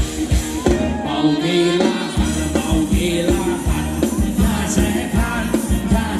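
Live Thai ramwong dance band music with singing over a fast, steady drum beat. The bass and kick drum drop out for about a second, a second in, then come back.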